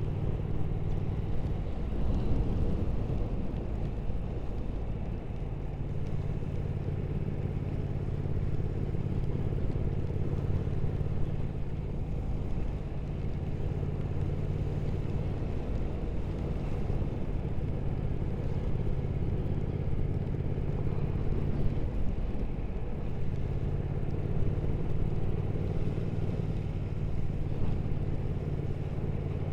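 Triumph Speed Twin 1200's parallel-twin engine running steadily under way, over wind and road noise. The engine note drops out briefly twice, a few seconds in and again about 22 seconds in, as the throttle is eased.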